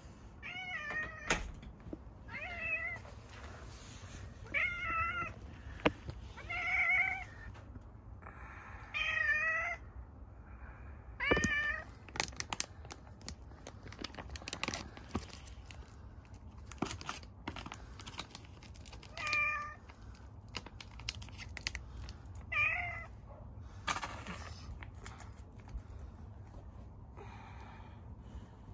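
A stray calico cat meowing repeatedly, about eight meows each under a second long, with a long pause between the sixth and seventh. There are a few short sharp clicks in between.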